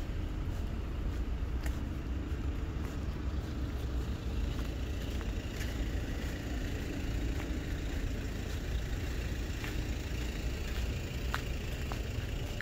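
Steady low rumble of city traffic, with a few faint scattered clicks.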